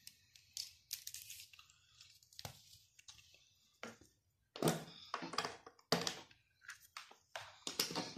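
Handling noises: a scattered run of short clicks, knocks and rustles, some grouped close together near the middle and end, as a test lead with alligator clips is picked up and moved about.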